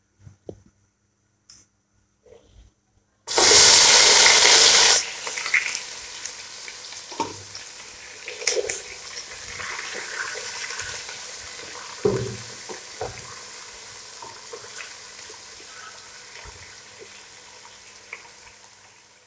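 Sliced onions hitting hot oil in a large non-stick pot: a loud burst of sizzling about three seconds in, settling into a steady frying sizzle that slowly fades. Scattered scrapes and knocks of a wooden spatula stirring the onions run through it.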